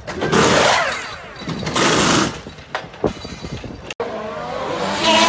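Pneumatic wheel guns of a Formula 1 pit crew firing in two loud bursts of about half a second each, followed by a few sharp clacks. After about four seconds a Formula 1 car's V6 turbo-hybrid engine comes in, growing louder.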